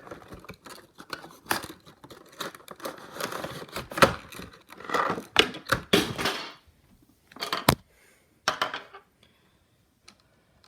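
Packaging rustling, crinkling and tearing, with many sharp clicks and knocks of handling, as a boxed HO model locomotive is worked out of its box. The handling noise stops about six and a half seconds in, with a couple of short rustles after and then quiet.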